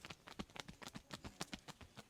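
Quick, irregular hand slaps and taps of an Indian barber's head massage, several a second.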